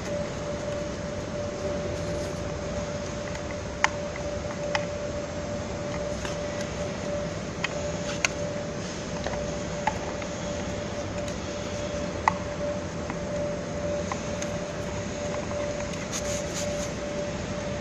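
Steady machine hum with one constant mid-pitched tone, and a handful of short sharp clicks and taps scattered through it as plastic-capped filter cartridges are handled and seated on a filter plate.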